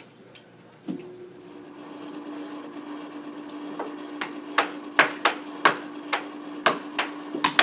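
Keys tapped on an Apple laptop's keyboard: sharp, irregular clicks, about one or two a second, starting about four seconds in, over a steady low hum.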